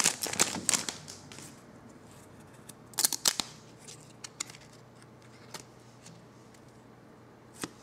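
Foil card-pack wrapper crinkling, fading out about a second in, then a few sharp clicks and snaps of glossy trading cards being flicked through and pulled apart by hand, the loudest pair about three seconds in.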